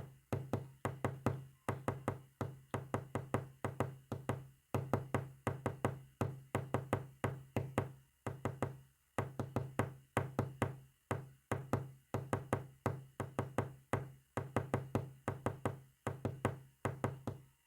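Morse code sent as sharp clicks or knocks in quick runs of several strokes, each run separated by a short pause, with a low hum under each run.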